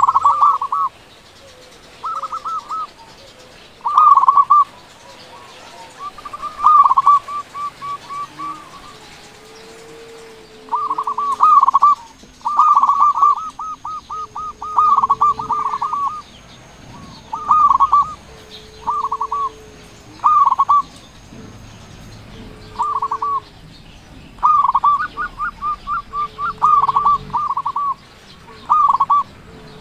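Zebra dove (perkutut) singing loudly: phrase after phrase of rapid, stuttering cooing notes with short pauses between. A softer, lower coo repeats every couple of seconds underneath.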